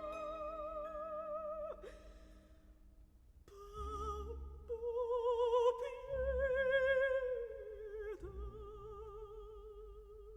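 Music: an operatic voice singing long held notes with wide vibrato, with a short pause about two seconds in.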